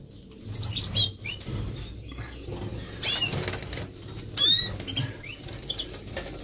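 Dry grass and hay rustling as a hand searches through it for nestlings, with several short, high chirps from small aviary birds.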